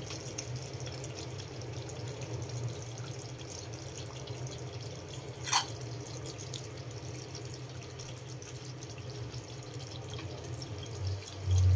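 Curry simmering in an aluminium pot on a gas stove: faint bubbling ticks over a steady low hum. There is a single metal clink about halfway through, and a dull thump near the end.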